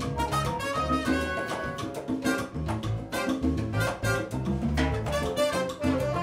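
Salsa band playing live, with trumpet, saxophone and flute over electric bass, congas and drums in a steady beat.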